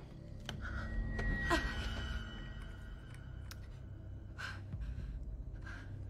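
A woman's tense breathing and sighs, a few separate breaths, over a steady low rumbling drone, with a few faint clicks and a brief high tone about a second and a half in.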